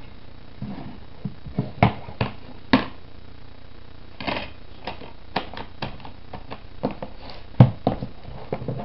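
Irregular sharp plastic clicks and knocks from a DVD keep case being handled, with a brief rustle about four seconds in.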